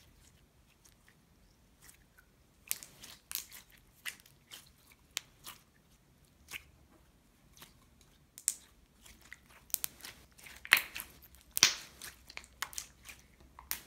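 Crayola clear glittery slime being worked by hand, making irregular sharp clicks and little pops that come thicker and louder in the second half.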